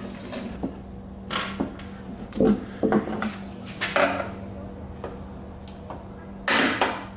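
Small clicks and knocks of hand tools and plastic and metal parts being handled while a welder's case is taken apart, with a louder scrape about six and a half seconds in. A faint steady hum runs underneath.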